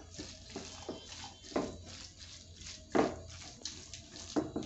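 Spatula stirring and scraping a thick egg and mixed-dal mixture in a pan, in irregular strokes, the loudest about one and a half and three seconds in.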